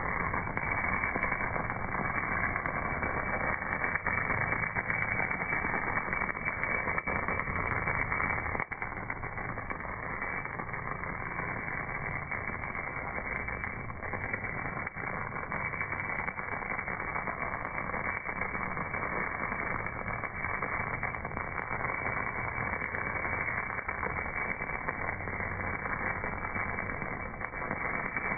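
MAG welding arc on a casting: its continuous crackling hiss slowed down with the slow-motion footage, so it comes out as a steady, low, muffled rushing noise with faint scattered ticks.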